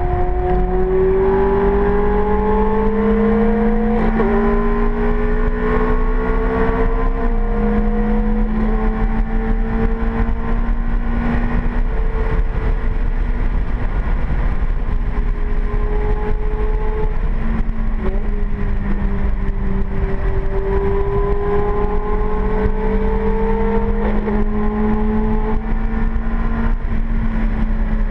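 Ferrari F430's V8 engine heard from inside the cabin, pulling hard at speed with its pitch climbing slowly. Two gear changes come about four and seven seconds in, and the pitch drops near the end, over steady tyre and wind noise.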